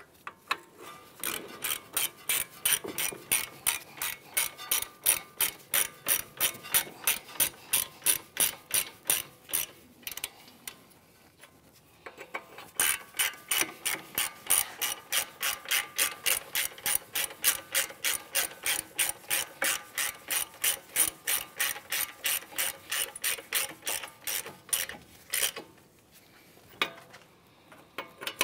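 Hand ratchet wrench clicking in a steady rhythm, about three or four clicks a second, as brake caliper bracket bolts are run in and snugged up. The clicking stops for about two seconds partway through, then carries on.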